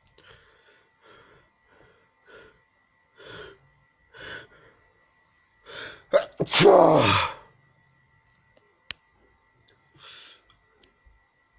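A person's breath catches in a run of short gasps about a second apart, each louder than the last. About six seconds in comes one loud sneeze whose voice falls in pitch. One more short breath follows near the end.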